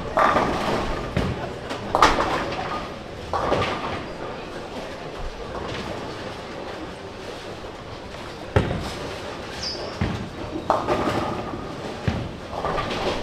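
Bowling alley: a bowling ball crashing into the pins with a clatter of falling pins, then more sharp pin crashes from neighbouring lanes at intervals, over a background of crowd chatter.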